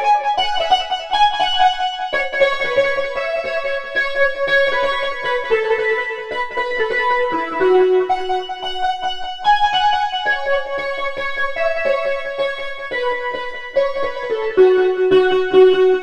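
Novation MiniNova synthesizer playing a soft electric-piano patch: chords under a melody, with notes struck in quick succession, recorded direct with no room sound.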